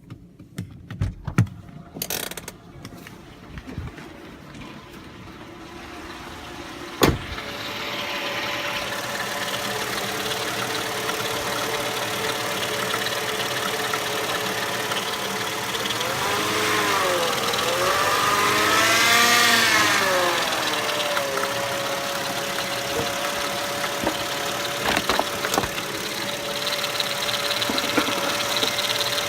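Mercedes ML 320's 3.2-litre V6 running, with a whine that swoops up and down in pitch and then settles into a steady tone: the unexplained whining noise the owner is asking about. It starts with a few clicks and knocks, and the running sound sets in after a sharp click about seven seconds in.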